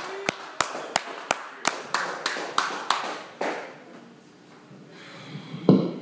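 Clapping from a small audience in a steady rhythm, about three claps a second, dying away after about three seconds. Near the end comes a single loud thump.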